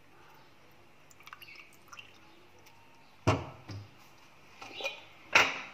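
Lemon juice dripping from a squeezed lemon into a plastic jug of milk and oil, a few faint drips, then a couple of louder knocks about three and five seconds in.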